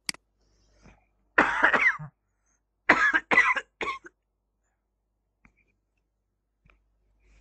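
A man coughing: one cough about a second and a half in, then three short coughs in quick succession. A sharp click comes just before them.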